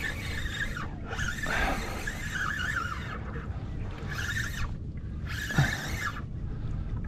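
Van Staal VR51 spinning reel whirring in about four bursts of a second or so each, with a wavering whine, while a small jack crevalle hooked on a topwater plug is fought on light braid. A steady low rumble of wind and water runs underneath.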